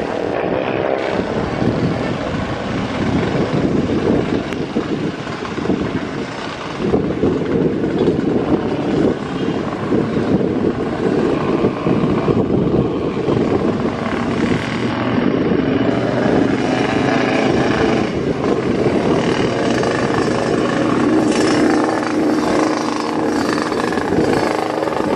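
Jet engine noise from a Batik Air Boeing 737 rolling out along the runway after landing, mixed with motorcycle engines running close by. The sound is a dense, steady noise with no clear breaks.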